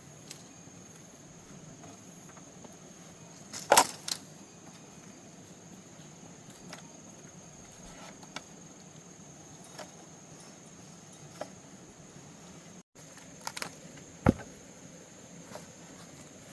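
Sharp wooden knocks of a blade striking bamboo: two loud strikes about four seconds in, a cluster of strikes near the end and scattered lighter taps, over a steady high insect buzz.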